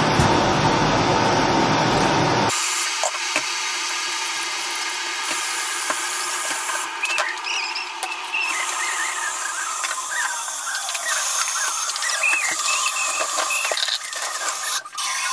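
Dishes being washed at a kitchen sink. A loud rush of running tap water stops abruptly about two and a half seconds in. Then comes a faint hiss with scattered short, high squeaks and a few light clinks of crockery.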